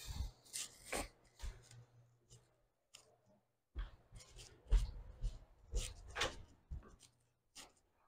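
Scattered knocks, clicks and rustles of a person moving about and handling objects, in two bunches with a short lull between them; the sharpest knock falls about halfway through.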